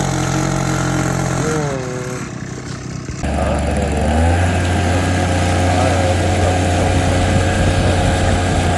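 OREC SP850A mower's small petrol engine idling steadily. About three seconds in it picks up and runs louder and steady.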